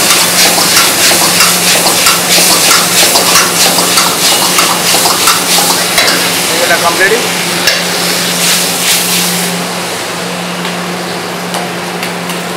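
Vegetables stir-frying in a hot wok: loud sizzling, with the metal ladle repeatedly scraping and knocking against the wok as the food is tossed. The sizzle quietens about ten seconds in, over a steady low hum.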